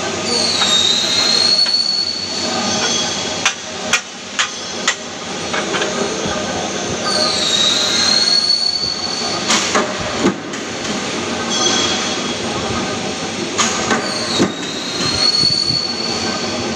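Mechanical flywheel punch press at work on aluminium scaffolding profiles: a steady machine din broken by sharp metal knocks of strokes and handled parts. Three times a high squealing whine drops briefly and then holds for a second or so.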